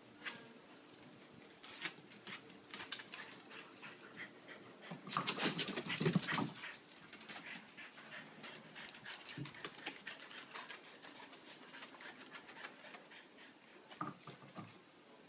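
Two dogs, a French bulldog and a brindle-and-white bulldog-type puppy, play-wrestling. There are many short clicks of claws on wooden decking, and a louder spell of scuffling and dog noises about five to six and a half seconds in.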